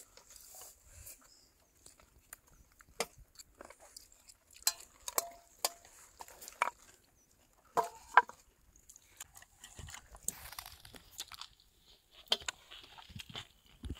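A person eating noodles and seafood: chewing and biting, with irregular crisp clicks and wet smacks.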